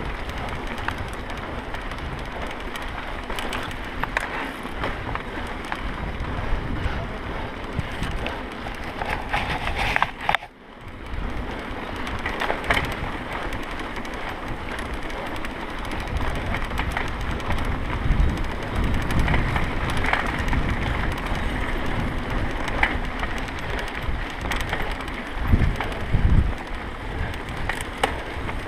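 Mountain bike ridden over a dirt trail, heard from a camera riding along: tyres crunching and the bike rattling under a steady rush of wind on the microphone, with low thumps from bumps. The sound breaks off briefly about ten seconds in.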